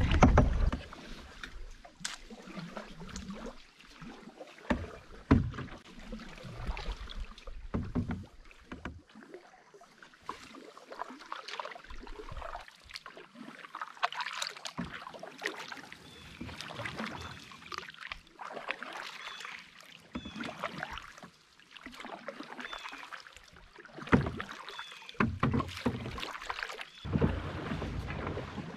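Canoe paddles dipping and pulling through calm water, an uneven series of splashes and drips from the strokes.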